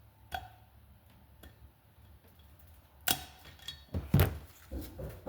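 Small metal clicks and knocks of hand tools and valve parts being handled on a motorcycle cylinder head: one light click about a third of a second in, then a cluster of sharper knocks and clatter from about three seconds in.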